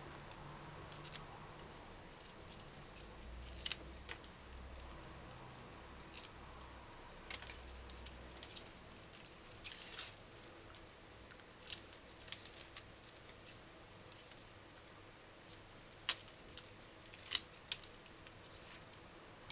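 Scallions being trimmed with a small kitchen knife while held in the hands: scattered short, crisp snips as the blade cuts through the stalks, root ends and leaf tips.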